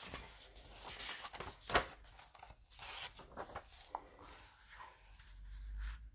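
Pages of a paperback picture book being turned and smoothed flat by hand: paper rustling and swishing, with one sharper crack a little under two seconds in.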